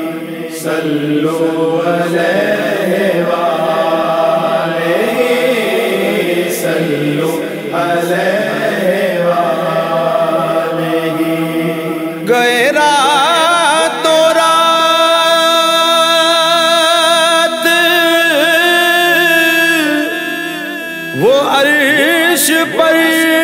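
Wordless devotional chanting of a naat: a slow, bending vocal melody over held tones. About twelve seconds in it becomes louder and fuller, with many layered voices held steady and a few sliding phrases.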